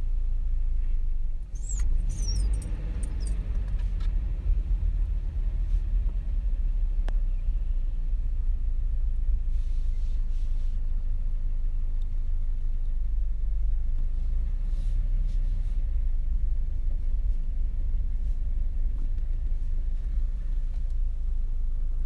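Car driving slowly, heard from inside the cabin: a steady low rumble of engine and tyres on the road.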